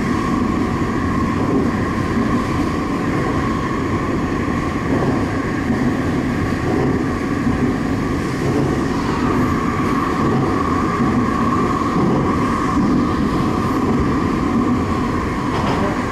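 Sendai Subway Tozai Line 2000 series linear-motor train running through a tunnel, heard from inside the leading car: a steady rumble of wheels on rail with a constant whine held at one pitch.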